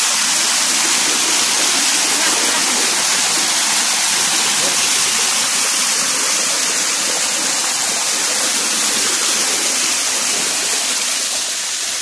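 Small waterfall cascading over stepped rock ledges: a steady, loud rush of falling water.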